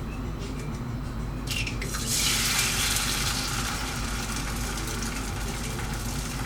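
Egg frying in a hot buttered pan: a hiss that jumps up about two seconds in as the egg goes into the fat, then eases to a steady sizzle.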